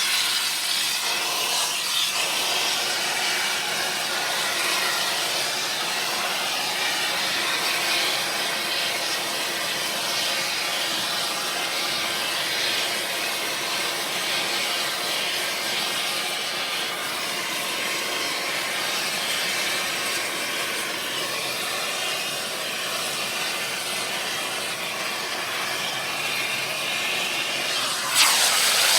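Air torch working on metal: a steady, rushing hiss that flares louder briefly near the end.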